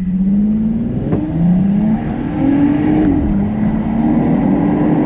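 2021 Volkswagen Atlas's 3.6-litre VR6 engine pulling hard at full throttle in sport mode. Its note climbs steadily and drops back twice, about a second in and about three seconds in, as the 8-speed automatic upshifts, then climbs again.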